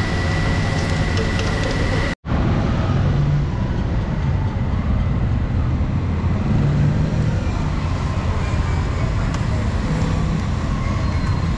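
Steady background din of a street market with road traffic running by. It breaks off for an instant about two seconds in, then carries on with the same low rumble.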